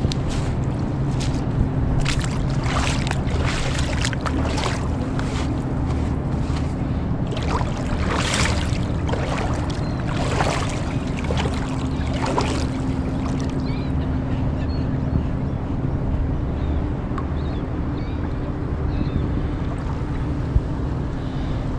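A steady low machine hum with a constant drone. Over it, for roughly the first half, come short crackling, splashy noises that then die away.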